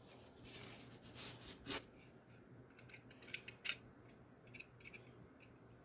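Faint scraping and a few light clicks of a Craftsman folding utility knife being handled as a utility blade is fitted into the storage inside its handle. The sharpest click comes a little past the middle.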